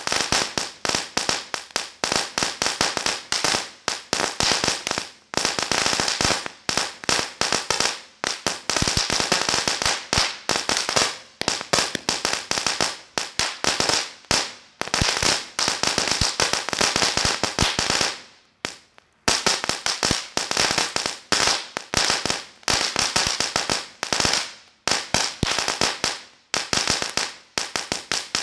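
Cracker Barrel firework going off: a rapid, unbroken barrage of firecracker bangs. There is a brief pause about two-thirds of the way through.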